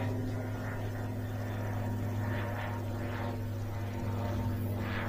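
Steady low electronic drone holding one pitch: a metal detector's signal tone sounding continuously over a buried target, with faint scratching of soil over it.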